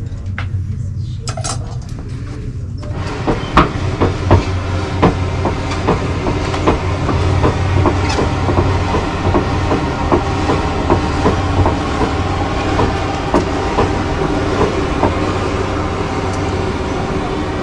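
Steady mechanical whirring that starts about three seconds in, with a regular click about every two-thirds of a second.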